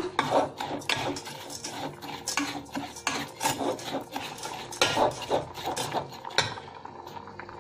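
A spoon stirring and scraping dry granulated sugar around a stainless steel pan, with irregular clinks and scrapes against the metal: the sugar is being melted without water to make caramel.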